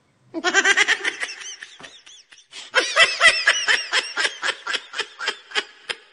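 Laughter in quick repeated pulses, in two bouts with a short break about two seconds in.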